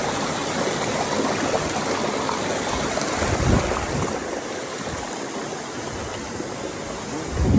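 Rushing water of a waterfall and its creek, a steady hiss, with a couple of low bumps on the microphone, one about three and a half seconds in and one near the end.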